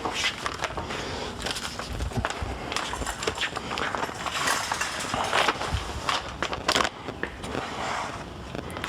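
A loaded shopping cart rolling over a hard store floor, its wheels rattling and the cardboard boxes in it jostling, with irregular clicks and knocks throughout.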